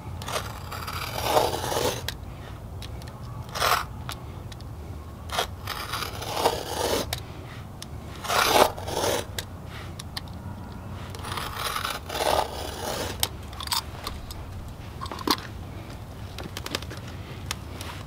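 Razor utility knife blade drawn through a thick rubber dump truck mud flap, scoring it along a marked line in a series of irregular scraping strokes, each about a half-second to two seconds long.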